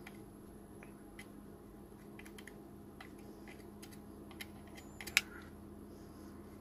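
Small scattered metal clicks and taps of tweezers and scissors working cotton wick into the coils of a rebuildable dripping atomizer, with one sharper click about five seconds in. A steady low hum runs underneath.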